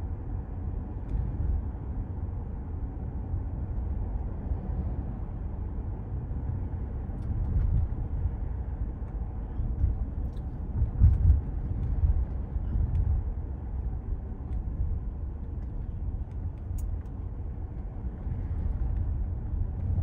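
Road and tyre noise heard inside the cabin of an electric Tesla driving at low town speed: a steady low rumble with no engine sound, swelling briefly a few times over bumps in the road surface.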